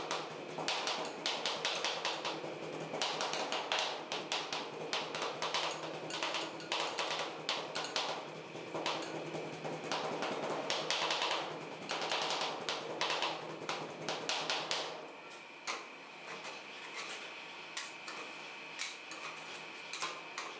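Two metal spatulas rapidly chopping and tapping on the stainless steel cold plate of a rolled ice cream pan as the mixture is worked and frozen. The fast chopping thins out to scattered taps about fifteen seconds in.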